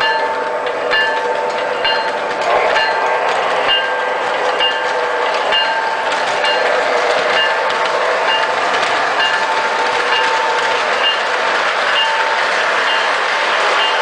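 O-gauge model Pennsylvania Railroad diesel locomotive's sound system ringing its bell, a chime repeating about once a second, over the steady rolling and motor noise of the running train.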